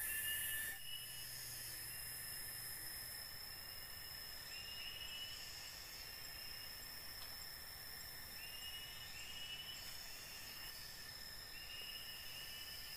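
Forest insects at night: a steady high-pitched insect drone, with short chirping calls repeating every second or two. A lower steady tone cuts off under a second in.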